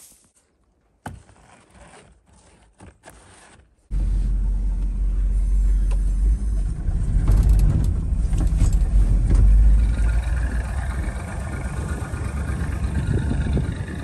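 Engine of an older Ford pickup truck running as it drives through snow, heard from inside the cab as a steady low rumble that comes in abruptly about four seconds in. Before it, a few faint knocks.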